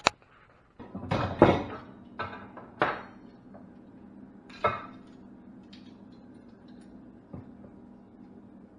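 A handful of sharp metallic clanks and knocks as metal tools and parts are handled on a workbench, the loudest about a second and a half in and the last near the five-second mark, over a faint steady hum.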